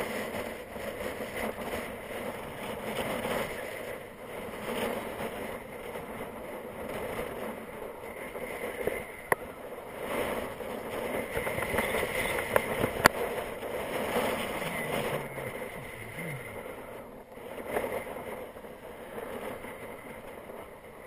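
Wind rushing on the microphone, rising and falling in gusts, with a few sharp clicks about nine and thirteen seconds in.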